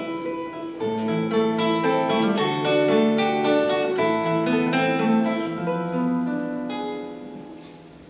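Two acoustic guitars playing a picked instrumental passage, the notes dying away near the end.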